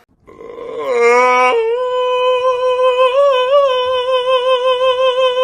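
A sung voice slides upward, then jumps to one long, very steady high note held about four seconds, with a slight wobble in the middle: the held call of a viral sung TikTok sound.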